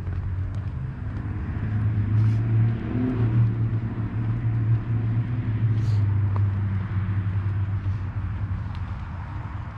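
Low rumble of a passing motor vehicle, growing louder in the middle and fading toward the end.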